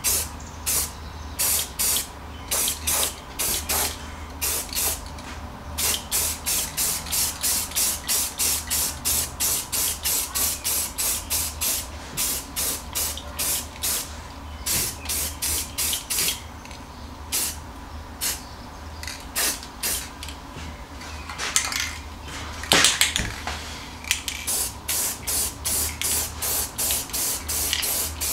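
Aerosol spray-paint can spraying in short hissing bursts, about two a second, in runs with brief pauses, with one longer, louder burst near the end.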